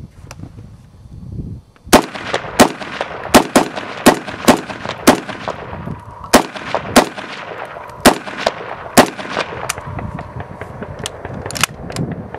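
Century Arms R1A1 Sporter, a .308 FAL-pattern semi-automatic rifle, firing about a dozen shots at an irregular pace of roughly one to two a second, starting about two seconds in. The rifle cycles each round without a jam.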